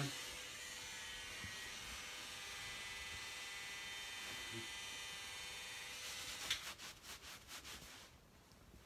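Electric hair clippers running with a steady buzz. About six seconds in, a towel is rubbed briskly over a freshly clipped scalp in quick strokes, and both sounds stop near the end.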